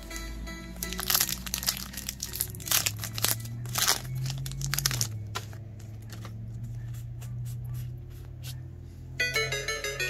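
Trading-card packaging crinkling and tearing in a dense run of sharp rustles over the first few seconds, thinning out afterwards, over background music with a low sustained drone; a plucked-string melody comes in near the end.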